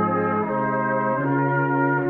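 Brass ensemble of cornets, tenor horn, euphonium and trombone playing a slow hymn in sustained chords, moving to a new chord about half a second in and again just over a second in.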